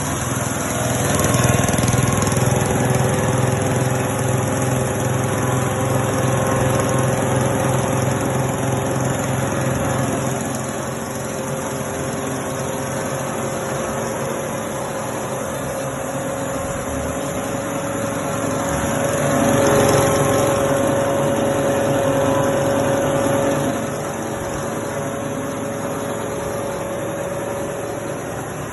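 Rice husk machine running steadily, a continuous mechanical drone with a steady tone, growing louder for a few seconds about two-thirds of the way in.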